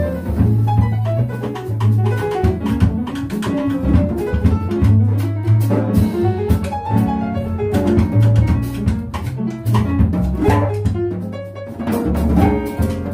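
Small jazz band playing live: upright double bass notes underneath, drum kit with cymbals, and a melody line above.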